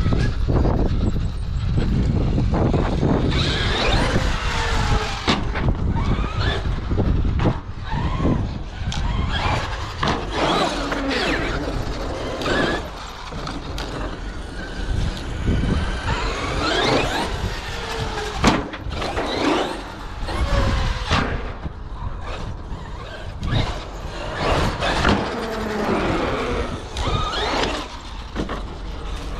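Traxxas X-Maxx electric RC monster truck's brushless motor whining up and down in pitch, again and again, as it accelerates and slows. Heavy wind rumble on the microphone runs underneath.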